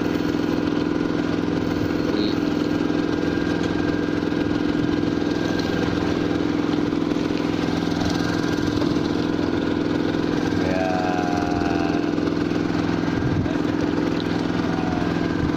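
A boat's engine running steadily at idle, a constant low drone.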